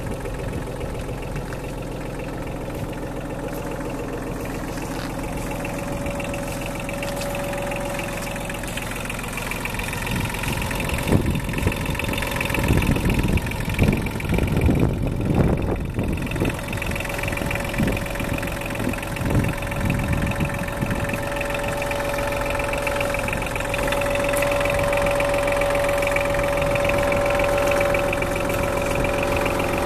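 Kubota KH-35 Bullpet mini excavator's diesel engine idling steadily. Louder, irregular rumbles and knocks come and go through the middle stretch.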